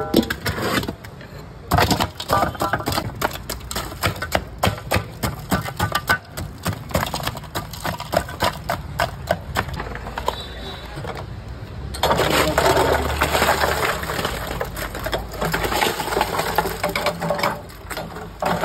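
Metal ice pick chipping a block of ice: rapid sharp strikes with cracking. The strikes come faster and louder for several seconds in the second half.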